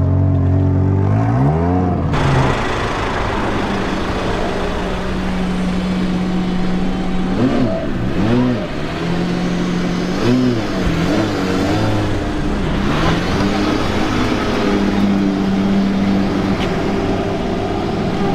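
Supercar engines revving and accelerating, loud, with a note that climbs about a second in and then several quick rises and falls in pitch as the throttle is blipped.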